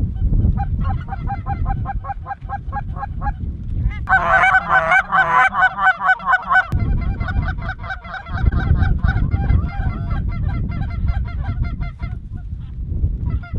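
A flock of geese calling in rapid, repeated honks, densest and loudest from about four to seven seconds in, over a low rumble of wind on the microphone.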